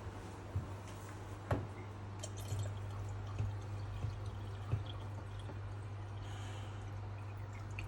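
Water poured into a dishwasher's salt reservoir, trickling and dripping with a few small knocks, while the reservoir is filled with water before the salt goes in. A steady low hum runs underneath.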